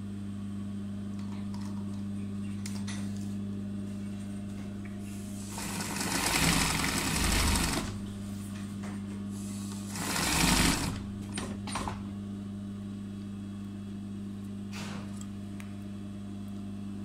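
Electric sewing machine doing embroidery, running in two bursts of rapid stitching: about two seconds from roughly five and a half seconds in, then about a second near the ten-second mark. A steady low hum runs underneath.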